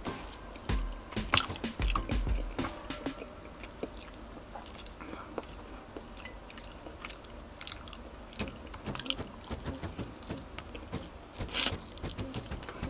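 Close-up mouth sounds of a person biting and chewing roast chicken, with scattered crisp clicks and crunches. There is a sharper crunch about a second in and another near the end.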